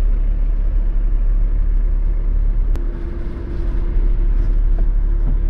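Steady low rumble of a Land Rover Discovery 4 idling and creeping forward in a slow queue, heard from inside the cabin. About three seconds in there is a click, then a faint steady tone that keeps sounding.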